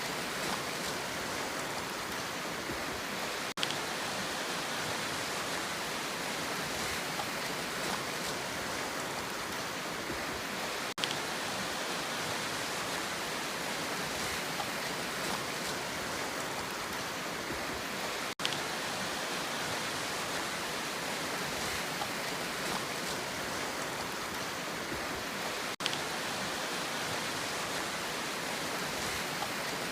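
Steady, even hiss of rushing water, played as a sea-sound relaxation track. It cuts out very briefly about every seven seconds.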